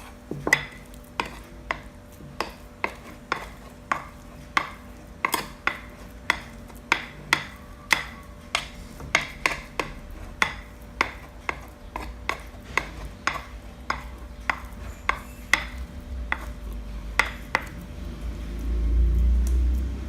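Minced tilapia paste being beaten and scraped round a bowl with a utensil, knocking against the bowl in a steady rhythm about twice a second, working the paste until it turns chewy. A low rumble swells near the end.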